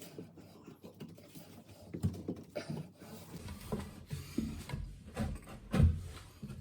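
Handling noise of a flush cone being pushed onto the flush pipe of a high-level toilet cistern: scattered soft knocks, taps and rubbing, with a louder thump near the end.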